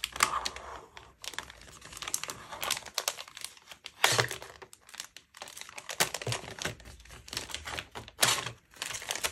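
Thin plastic packaging crinkling and crackling as hands handle and fold it back, in irregular crackles with louder bursts about four seconds in and again near the end.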